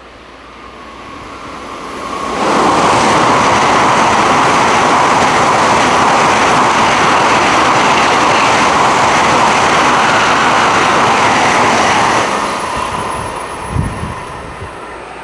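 N700-series Shinkansen bullet train passing through a station at high speed. A rush of noise swells in over a couple of seconds and holds as a steady loud roar of air and wheels for about ten seconds, then fades away. There is a short thump near the end.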